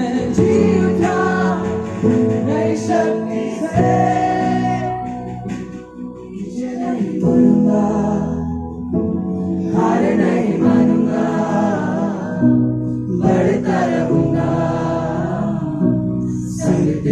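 Christian worship song performed with several voices singing over instrumental accompaniment.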